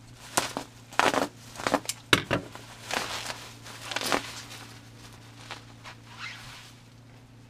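Plastic bubble wrap being slit with a box cutter and torn open by hand, crinkling and crackling in irregular bursts that are loudest in the first half and die down to faint rustling after about four seconds.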